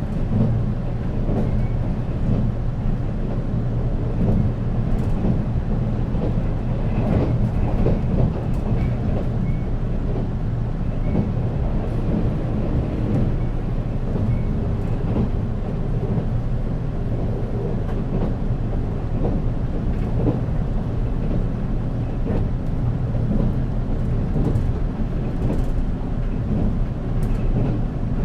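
Running noise inside the motor car of a JR East 485-series electric train. The traction motors and the wheels on the rails make a steady low rumble, with scattered short clicks from the track.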